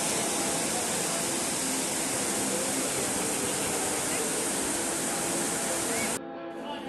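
Water of the Trevi Fountain cascading over the rock-work into its basin: a steady rushing hiss that cuts off abruptly about six seconds in.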